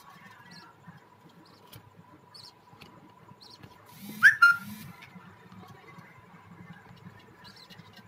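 Budgies in a nest box: faint short chirps throughout, and one loud, harsh squawk with a falling pitch about four seconds in.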